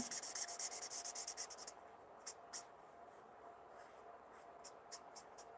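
Felt-tip alcohol marker (Stampin' Blends, Light Smoky Slate) scratching across stamped cardstock as it shades in an outline. Quick, rapid strokes for the first second and a half, then a few scattered light dabs.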